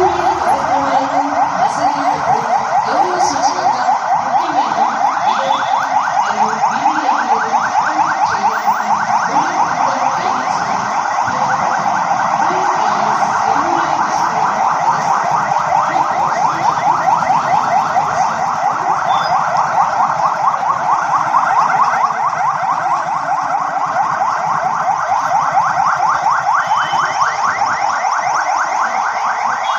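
Police car sirens sounding together in a continuous, overlapping wail of fast rising-and-falling electronic sweeps as a convoy of patrol cars passes.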